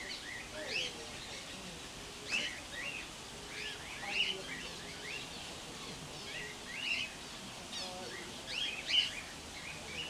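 Small birds chirping: short high-pitched calls that glide quickly in pitch, about one or two a second, coming irregularly over a steady background hiss.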